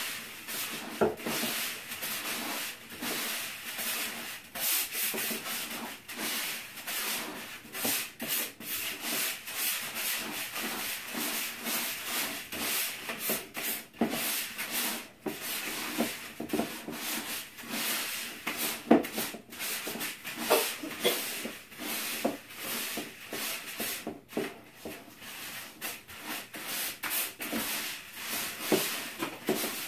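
Hands stirring trout chow fish-feed pellets through liquid flavoring in a plastic bucket. The pellets scrape against each other and the bucket wall in an uneven, continuous rustling and rubbing made of many short strokes.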